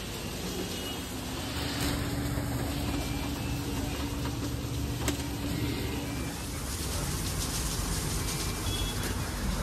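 Steady low rumble of a motor vehicle, with a faint hum for a few seconds and a couple of sharp clicks.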